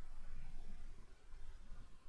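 Low, uneven background rumble with faint hiss: room noise on the microphone, with no distinct sound events.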